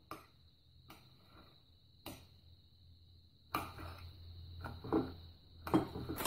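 Kitchen knife chopping tomato pulp against the bottom of a glass bowl: a few scattered clicks at first, then a quicker run of knocks and taps in the second half.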